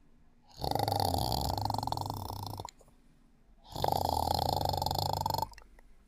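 Sleeper snoring: two long snores, each lasting nearly two seconds, with quiet pauses between breaths.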